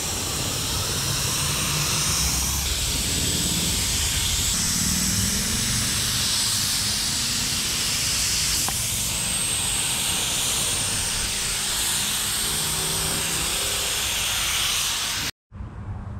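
Compressed-air spray gun hissing steadily as it sprays epoxy primer. The hiss changes abruptly a few times and cuts off sharply near the end.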